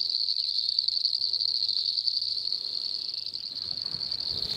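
Chorus of many frogs calling after heavy overnight rain: a dense, steady, high-pitched trilling that goes on without a break, really vocal.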